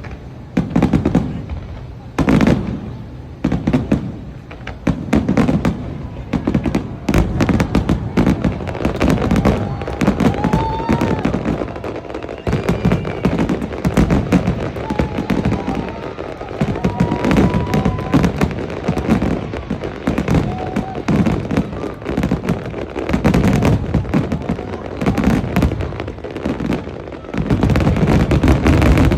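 Aerial fireworks display: a rapid, near-continuous string of booming bursts and crackles, growing denser near the end.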